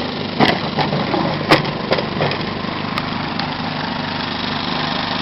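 Champion 2000-watt inverter generator running steadily in economy mode inside its wooden box. Several sharp knocks in the first three seconds as the wooden box is closed up around it.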